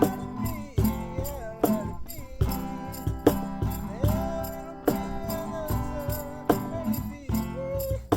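A song: one singing voice carrying a wavering melody over strummed guitar, with regular sharp percussive hits in time.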